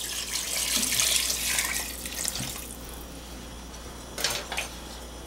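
Water poured from a glass measuring cup into a pot of braising liquid, splashing and gurgling for about two and a half seconds before the pour tails off. A brief soft noise follows near the end.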